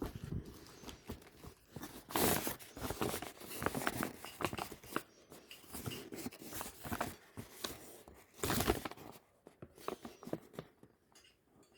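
Packaging being handled and torn open: irregular rustling, crinkling and light tapping, with louder tearing bursts about two seconds in and again about eight and a half seconds in.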